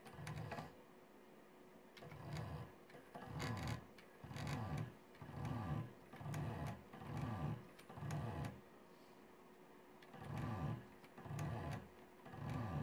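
Stepper motors of a DVD-drive CNC plotter buzzing through a series of short moves, about eleven of them, each lasting under a second and coming roughly a second apart, with a brief pause about two-thirds of the way in.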